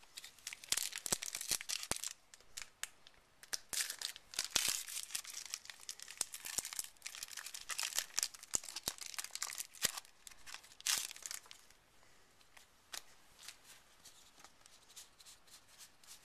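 A foil trading-card booster pack being torn open and its wrapper crinkled: a long run of crackling and sharp rips that thins out after about eleven seconds into softer, sparser rustling.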